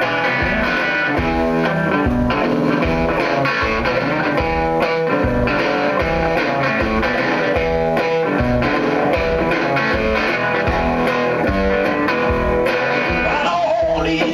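Amplified electric guitar playing a blues passage over a steady low thump about twice a second; a singing voice comes in near the end.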